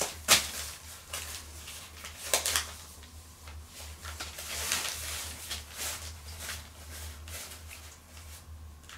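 Newspaper rustling and crinkling as a Cotton de Tulear puppy rolls and tugs at a rope toy on it, in irregular crackles with two sharp louder ones, about a third of a second in and again near two and a half seconds. A steady low hum runs underneath.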